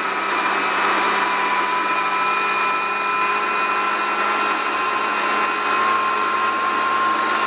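Rally car engine at full throttle, held at high revs in a high gear with an almost steady note as the car accelerates, heard from inside the cockpit over a continuous rush of gravel and wind noise.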